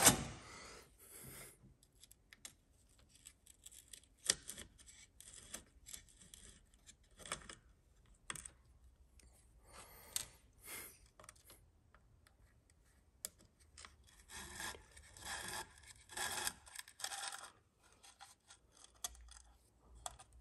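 A thin metal pin and small tools being worked against a metal RC bulldozer's undercarriage while fasteners are taken out of its belly pan: faint, irregular scraping, clicking and rubbing, with a denser run of scraping about 14 to 17 seconds in.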